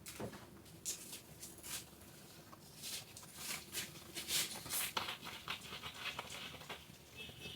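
Irregular scraping and clattering of kitchen utensils against a bowl or jar as cake batter is handled, busiest midway through.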